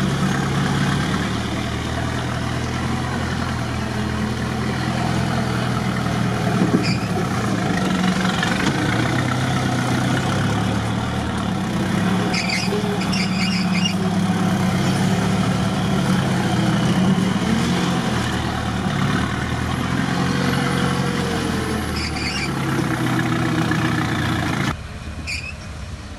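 Off-road vehicle engine running and revving up and down, with a few short high squeaks. Near the end the sound drops off abruptly to a quieter background.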